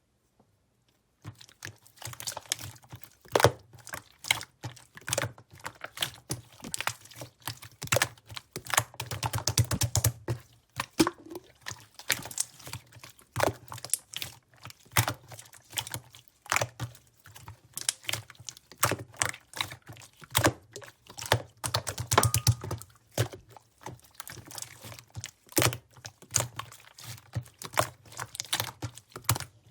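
Thick, opaque yogurt-textured slime being squeezed and pressed by hand, giving a dense run of irregular sticky clicks and small crackles.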